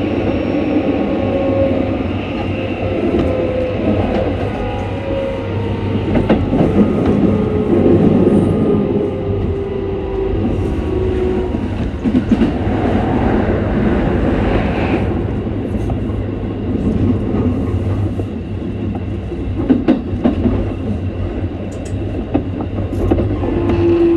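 Keikyu electric train running, its traction motors whining over a deep steady rumble, with the whine's pitch sinking slowly and short wheel clacks over rail joints. The motors are louder than usual, a noise the owner thinks may be a loud Mitsubishi-type motor.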